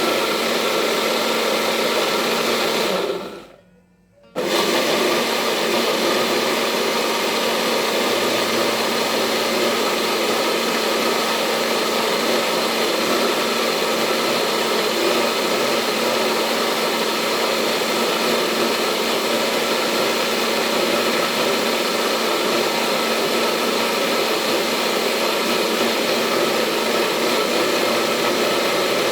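Electric kitchen blender running steadily, blending a liquid mix of ginger, turmeric and garlic. About three seconds in it winds down and stops for about a second, then starts again at full speed and runs on steadily.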